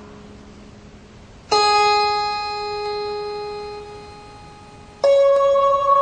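Slow background music on a keyboard: a single note struck about one and a half seconds in rings on and fades slowly, then a second, higher note sounds near the end and rings on with a slight waver.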